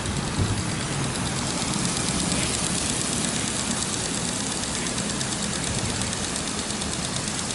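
Hose-fed garden sprinklers spraying water onto a wet brick-tiled roof: a steady hiss and patter of spray, with a steady low rumble underneath.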